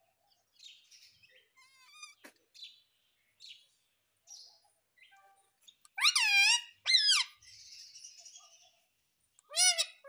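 Indian ringneck parakeet making soft chirps and a short trill, then loud, sharp calls: two about a second apart and another just before the end.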